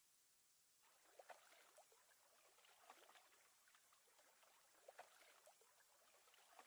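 Near silence: a faint steady hiss, joined about a second in by faint irregular crackling with scattered small clicks.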